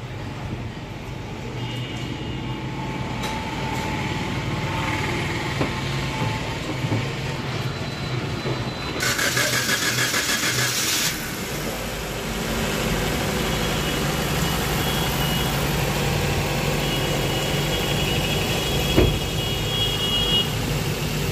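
Maruti Suzuki XL6's freshly rebuilt 1.5-litre four-cylinder petrol engine running at a steady idle on its first start after a full overhaul. A loud hiss lasts about two seconds, starting about nine seconds in, and there is a single thump near the end.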